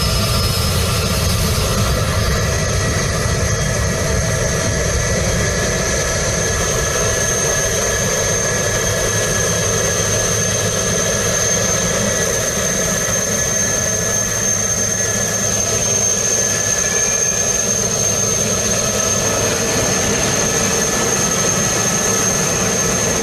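Jet airliner engines running steadily at an even level, a dense rush with a constant high whine over it.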